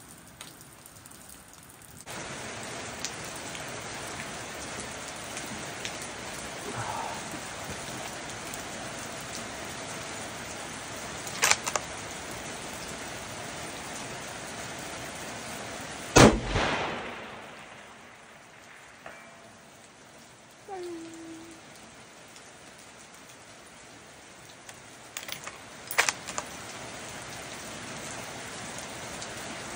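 A single shot from a Seekins Havak PH2 bolt-action rifle in 6.5 Creedmoor about halfway through, with a long echo dying away over a second or two. A few lighter sharp clicks come before and after it, over a steady hiss.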